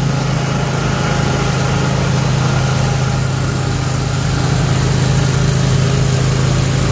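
A John Deere X310 garden tractor's engine runs steadily under load, driving a 44-inch snowthrower that is throwing snow out of its chute. It makes an even, unbroken hum.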